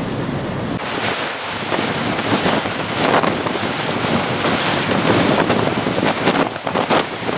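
Strong, gusty winter wind blowing hard across the microphone. About a second in it turns from a low rumble into a loud hiss that comes and goes in uneven gusts.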